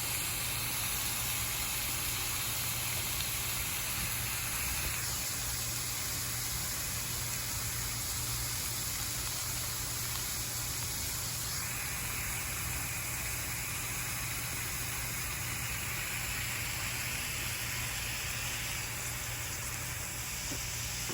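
Greens cooking in a pan on the stove, a steady sizzling hiss.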